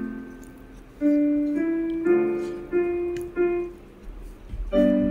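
Background piano music: a slow melody of single notes, each struck and fading, about one every half second.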